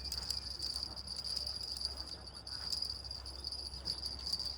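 Steady, high-pitched insect chorus, a continuous even chirring with no break.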